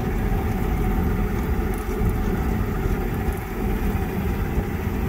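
A small fishing boat's motor idling, a steady low rumble.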